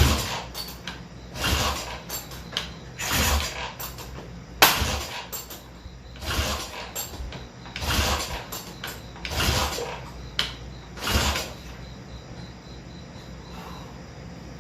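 1968 Triumph 650 parallel twin being kick-started about eight times, roughly one kick every second and a half: each a clunk of the kickstart with a short rush as the engine turns over, never catching and running. It is a hard-start fault that the owner puts down to the stator.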